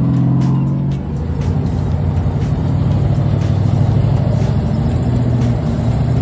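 Off-road rig's engine running with background music.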